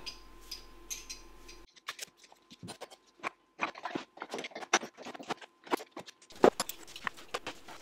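Irregular light clicks and clinks of small metal tools and parts being handled on a metal lathe's workbench.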